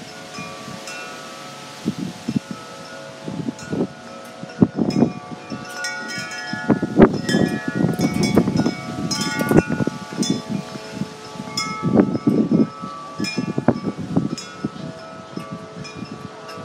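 Wind chimes ringing in gusty wind: many struck tones at several pitches, overlapping and ringing on, busiest in the middle, with wind gusts rumbling on the microphone.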